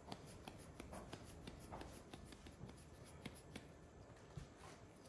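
Faint light ticks and taps, several a second, from a small plastic glitter bottle being shaken and tapped to sprinkle biodegradable glitter, just above room tone.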